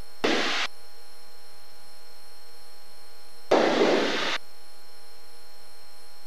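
Steady electrical hum on a Cessna 172's intercom audio feed, broken twice by a short burst of hiss, once just after the start and again for about a second near the middle.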